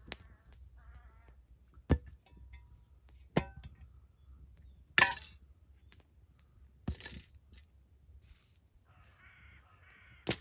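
A bird calling briefly near the start and again near the end, with a few scattered sharp cracks and snaps, the loudest around the middle.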